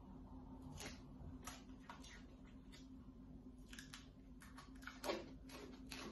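Plastic cling film being handled and pulled off its roll: a series of short crackles and clicks, the loudest about five seconds in, over a faint steady hum.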